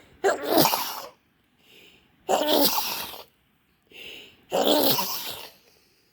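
A person sneezing three times in a row in a sneezing fit, each loud sneeze coming about two seconds after the last, with a short sharp intake of breath before the second and third.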